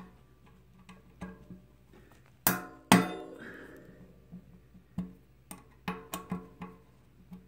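Metal hand wrench clinking against the bike's steel dropout bolts as they are loosened: scattered light clicks, with two sharp ringing metallic clanks about two and a half and three seconds in.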